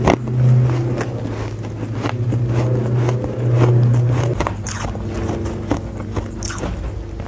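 Chewing and crunching mouthfuls of hard refrozen powdery ice, many sharp crunches, with a metal spoon scraping into the ice in the bowl. A steady low hum runs underneath and drops away about four seconds in.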